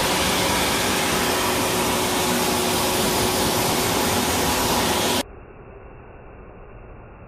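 Pet grooming dryer blowing a steady rush of air, with a faint steady hum in it. About five seconds in, the sound suddenly drops much quieter and duller.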